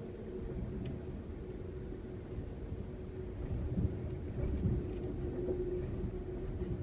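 Steady low rumble of a moving Amtrak Superliner passenger train heard from inside the car, with a faint steady hum and a few soft knocks about four to five seconds in.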